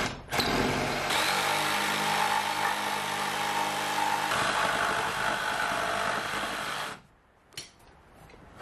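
Cordless reciprocating saw cutting a chine notch into a plywood boat frame, running steadily for about seven seconds and then stopping.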